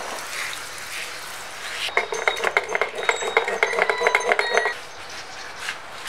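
Water spraying onto a bicycle's steel disc brake rotor, then about two seconds in a stiff brush scrubs the rotor for nearly three seconds, a rapid metallic chatter with the rotor ringing.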